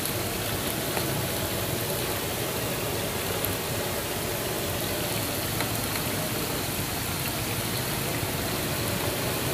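Fish pieces sizzling steadily in shallow oil on a large flat tawa griddle.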